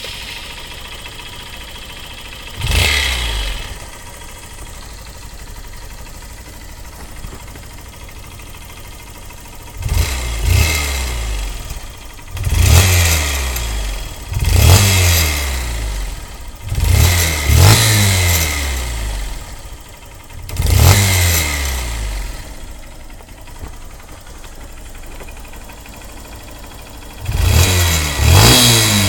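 Honda CBF125 single-cylinder four-stroke engine idling and revved in several short throttle blips, with an exhaust leak at the cylinder, where the exhaust seal there needs replacing.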